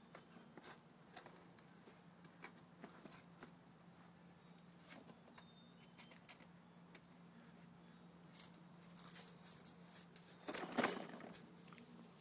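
Faint scattered taps and clicks of a toddler handling a plastic toy water table, over a low steady hum. Near the end comes a louder, noisy rustle.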